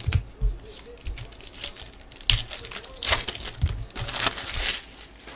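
Trading-card pack wrappers being torn open and crinkled by hand, in irregular rustling bursts.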